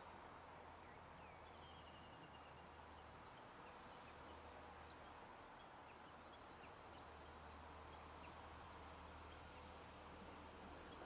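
Near silence: faint outdoor ambience with a low steady hum and a few faint, high bird chirps, including one short call about a second and a half in.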